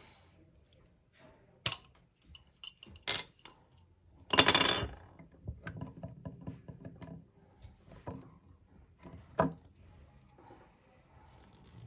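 Small plastic toothbrush parts and packaging being handled: scattered sharp clicks and taps, with a louder rustle of plastic lasting under a second about four seconds in.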